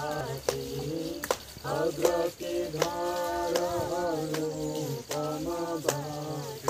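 Voices singing a slow devotional chant with long held, gliding notes, over sharp clicks that keep a rough beat somewhat under a second apart.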